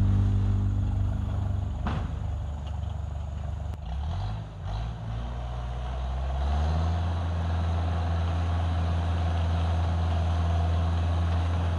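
Dresser 100G crawler track loader's engine running, its pitch shifting and sliding for a few seconds, with a knock about two seconds in, then settling into a steady run from about six seconds in.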